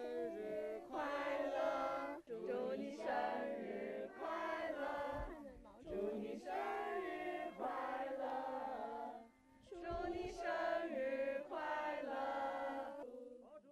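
A crowd of people singing a birthday song together in unison, in several phrases with short breaks between them.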